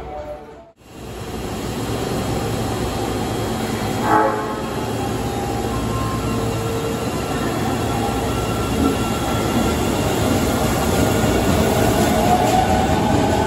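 Osaka Metro 20 series subway train sounding a short electronic horn about four seconds in, then pulling out of the underground platform. Its motor whine rises in pitch as it gathers speed.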